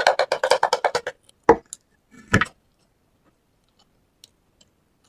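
Close-up eating sounds of fried shrimp being chewed: a quick run of crisp crunching clicks lasting about a second, then two single knocks, then near quiet.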